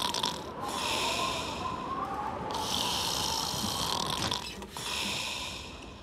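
Cartoon bear Ernest snoring in his sleep: about three long, breathy snores in a row, each lasting a second or two.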